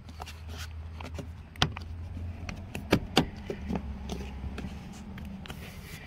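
Plastic door-sill trim, wrapped in a stainless sill guard, being pressed by hand down into its clips: a few sharp clicks and knocks, the clearest about a second and a half in and around three seconds in, over a low steady rumble.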